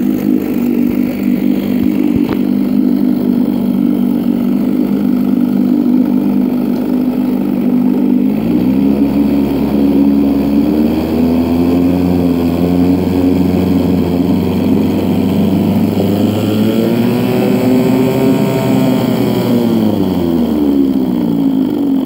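A 1964 Johnson JW 3 hp two-stroke outboard runs in a test barrel, idling steadily at first. About eight seconds in the throttle is opened, and the revs climb slowly for about ten seconds before dropping back to idle near the end. The motor, rebuilt after its pistons were found seized, is running smoothly.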